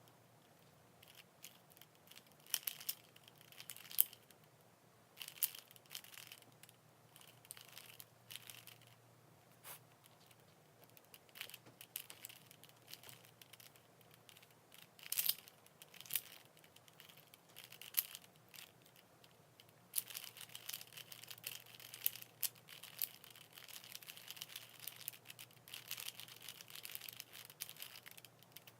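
Rubik's cube being handled and worked: irregular plastic clicks and short scratchy rasps, coming thickest over the last several seconds.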